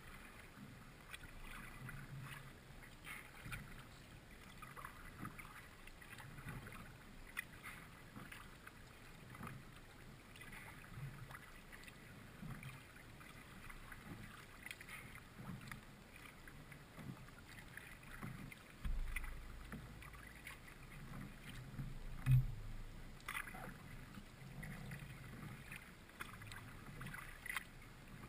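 Kayak being paddled: paddle blades dipping and dripping stroke after stroke, with soft knocks on the hull and one louder knock about three-quarters of the way through.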